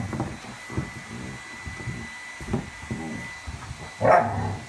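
Dog growling and grumbling at its chew bone in a run of short, rough, low sounds, with one louder bark about four seconds in.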